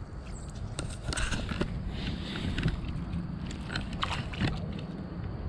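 Close rustling and crackling with a few sharp clicks, over a low steady rumble: handling noise near the microphone.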